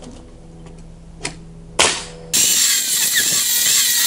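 Pneumatic nail gun firing twice into pine boards, a lighter shot then a sharp loud one about half a second later. Then a table saw starts ripping a pine board, a loud steady cutting sound with a wavering whine.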